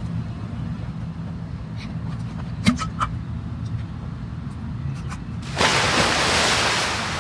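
A low, steady motor hum, with a few light clicks around the middle and a loud rushing hiss lasting about a second and a half near the end.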